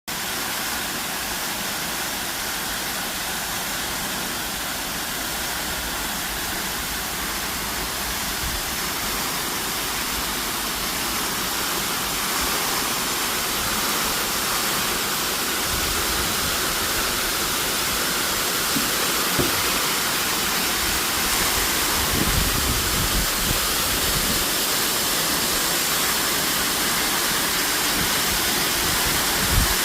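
Artificial waterfall: a steady rush of falling water that grows slightly louder, with a few brief low thumps in the second half.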